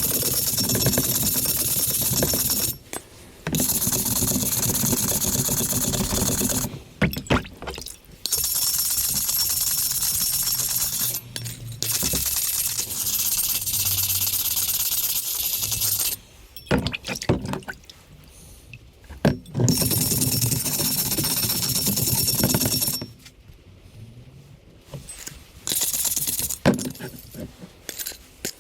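A power tool runs in repeated bursts of two to four seconds, a steady high-pitched noise with a faint whine. Short clinks and knocks of handling come between the bursts.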